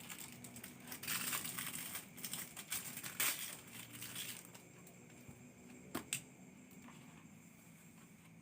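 Crinkling and rustling lasting about three seconds, starting about a second in, followed by two short sharp clicks.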